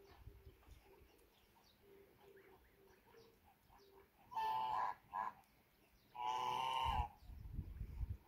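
Waterfowl honking: a loud call about four seconds in, a short second call just after, then a longer call a second later. Fainter short calls come before them, and a low rumble follows near the end.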